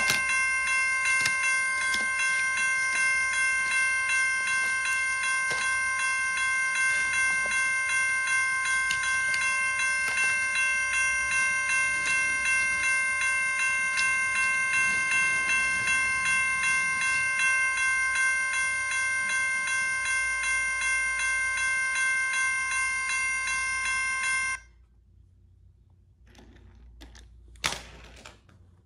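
Railroad crossing bell ringing steadily at about two rings a second, cutting off suddenly about four seconds before the end. A few soft knocks of toys being handled follow.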